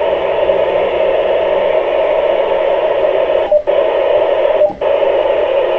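Steady static hiss from an FM amateur radio receiver on the ISS voice repeater downlink between transmissions, cut off above the voice band, with two brief dropouts a little past the middle.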